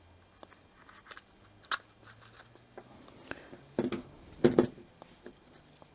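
Small plastic parts of a trimmer's recoil pull starter being handled: scattered clicks and knocks, with one sharp click under two seconds in and a denser run of knocks around four seconds in.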